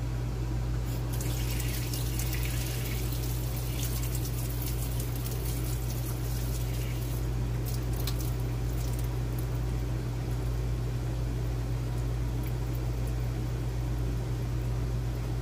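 Sink faucet open with the RV's water supply shut off, the water rushing out as the line pressure bleeds down, spitting a few times and dying away after about nine seconds. A steady low hum runs underneath.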